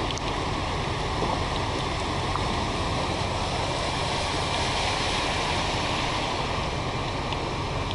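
Flash-flood water rushing past in a steady, even flow.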